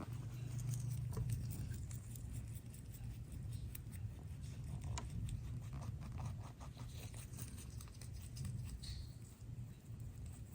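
Domestic rabbit munching fresh greens: a fast, steady run of small crunchy clicks from its chewing.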